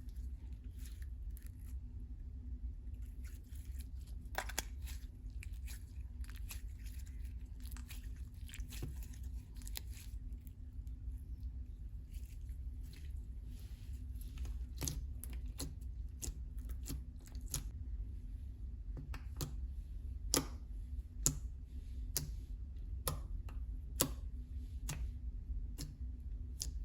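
Slime being squeezed and pressed by hand, giving irregular sticky clicks and crackles, with a few sharper ones in the second half, over a steady low hum.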